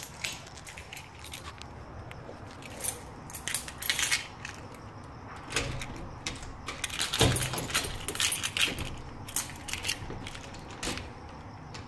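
A bunch of keys jangling and clicking against a door lock as keys are tried in it one after another. There is a single thump about seven seconds in.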